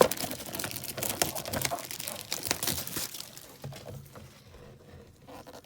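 Plastic shrink-wrap being torn and peeled off a trading-card box, crackling and crinkling for about three seconds, then dying away to a few faint rustles.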